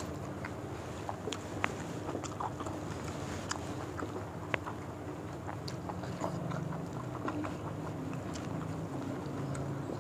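Several people chewing fried gourami and rice, with short wet mouth clicks and smacks scattered throughout, over a steady low hum.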